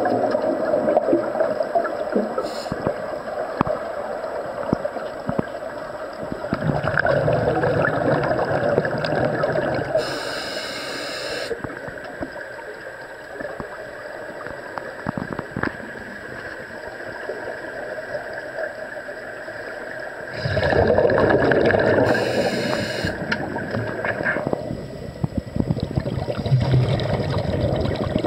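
Underwater bubbling and gurgling of air streaming up from air-fed diving helmets, heard through the water. It goes on throughout, growing louder for a few seconds about twenty seconds in. Short high hisses of air come about ten seconds in and again about twenty-two seconds in.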